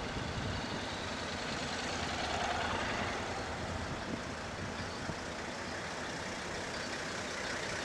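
Vehicles passing close at low speed: a motorcycle and then a Toyota Land Cruiser pickup, engines running steadily.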